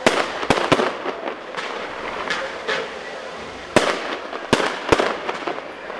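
Aerial fireworks shells bursting overhead: an irregular series of sharp bangs, several within each second. The loudest bangs come right at the start and just before four seconds in.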